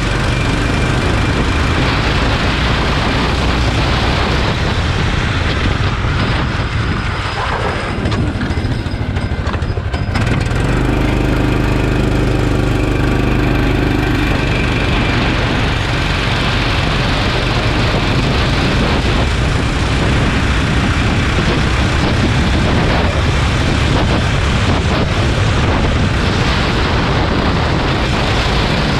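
Go-kart engine running at speed under a steady rush of noise. It eases off about seven seconds in, as if off the throttle for a corner, and picks up again strongly about ten seconds in.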